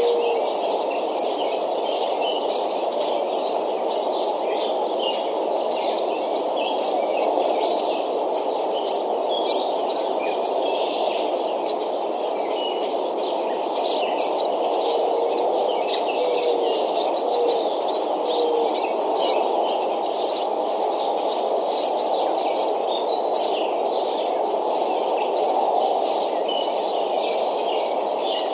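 Small birds chirping over and over, with short high calls scattered throughout, above a steady low rushing noise.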